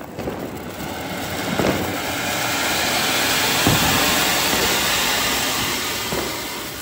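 Anar (flower pot) ground fountain firework spraying sparks with a loud, steady hiss that swells over the first few seconds and eases off toward the end, with a few brief pops.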